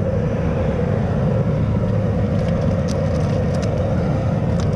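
Propane boil burner running at full flame under a large pot of boiling water, a steady low rush, with a few faint clicks about midway and near the end.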